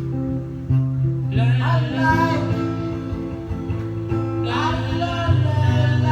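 Acoustic guitar playing sustained chords while a voice sings two phrases, one starting about a second in and one near the end: a song run through during a soundcheck.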